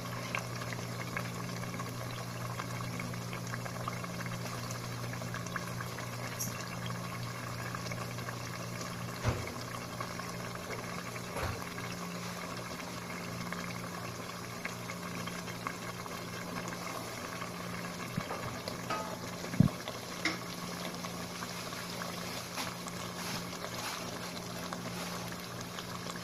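Thick doro wat (Ethiopian chicken stew) bubbling and crackling as it simmers in a pot, over a steady low hum, with a few brief knocks.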